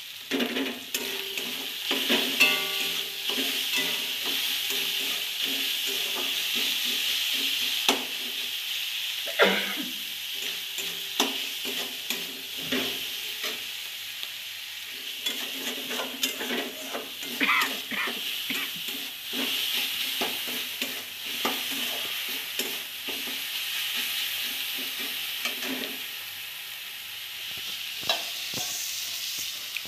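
Onion-tomato masala frying in oil in a steel wok, giving a steady sizzle, with a metal spatula scraping and clinking against the pan as it is stirred now and then.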